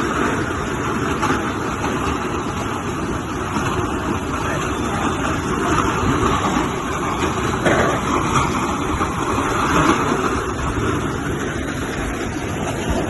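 Windstorm wind gusting at tornado force, a loud, continuous rushing noise that swells and eases with the gusts.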